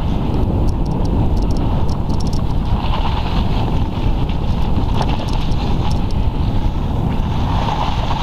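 Steady wind buffeting the microphone of a camera riding on a bicycle down a snowy track, with the bike's small rattles and clicks over it.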